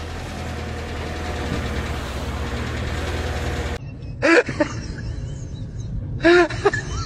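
Excavator diesel engine running steadily with an even low pulsing, cut off abruptly a little over halfway through. Two short, loud calls follow, each rising and then falling in pitch.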